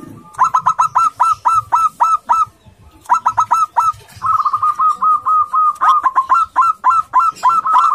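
Zebra dove (perkutut) singing its aggressive calling song: rapid runs of short, clipped cooing notes, about four or five a second. The song breaks briefly about two and a half seconds in, then runs on with a faster, near-continuous rattling stretch in the middle.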